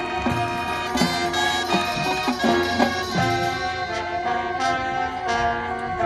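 High school marching band playing: brass holding sustained chords over regular drum strikes.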